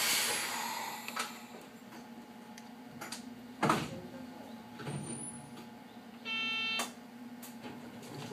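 Cab sounds of a Hakone Tozan Railway train standing still: a hiss at the start that fades over about a second, sharp clicks and knocks around one, three and four seconds in, and a short buzzer tone of about half a second near seven seconds, over a steady low hum.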